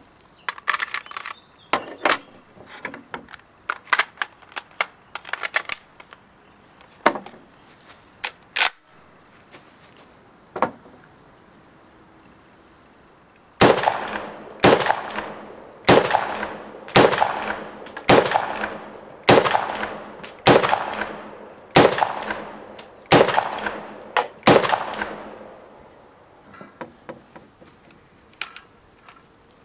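Ruger Ranch Rifle (a Mini-14 variant) firing about ten rounds in semi-automatic, a little over a second apart, each a sharp crack with a short echo. Before the shots come scattered clicks and clacks of the rifle's bipod being handled, and more follow after.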